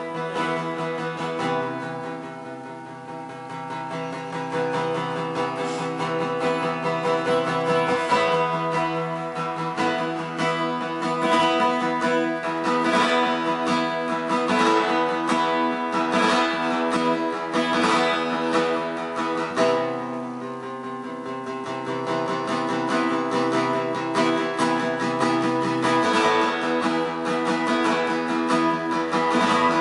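Background music: acoustic guitar strumming chords, with two brief softer passages.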